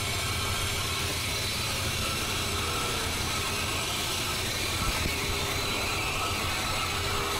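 Freight train's hopper cars and boxcars rolling past on the rails: a steady, even rolling rumble, with faint thin tones coming and going over it.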